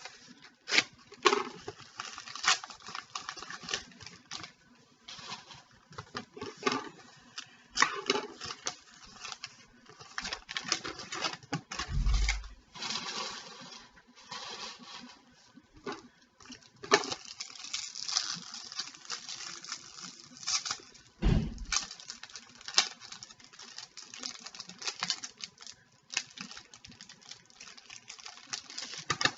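Trading card packs being handled and opened: irregular crinkling and rustling of a wrapper and cards being shuffled and slid, with two dull thumps on the table, one about twelve seconds in and one about nine seconds later.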